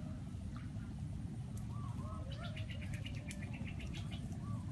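Outdoor rural ambience of birds calling in short, arching chirps, with a fast run of high ticking chirps from about two seconds in for nearly two seconds, over a steady low background noise.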